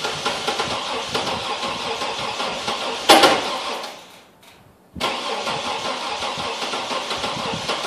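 Chevy TrailBlazer engine cranking over on the starter without catching, a cold hard start that the owner puts down to dead cylinders. About three seconds in there is a brief louder burst, then the cranking dies away for about a second and starts again abruptly.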